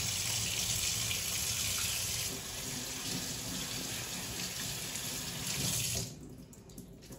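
Kitchen mixer tap running into a stainless steel sink while hands are washed under the stream; the water is shut off about six seconds in.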